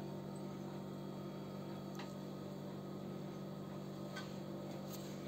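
Steady low hum of room tone, with a couple of faint clicks about two seconds and four seconds in.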